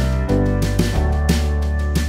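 Background music with a steady beat, about three beats a second, over held bass notes that shift to a new note about a second in.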